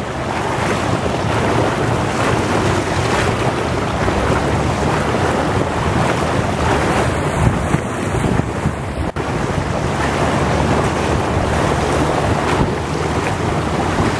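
Wind rushing over the microphone of a camera on the move, a loud, steady rumbling noise.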